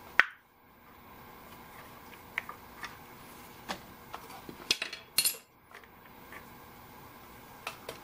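Small metal parts and hand tools clinking as they are handled. There is a sharp clink at the very start, scattered lighter clinks, a cluster of louder clinks about five seconds in, and one more near the end.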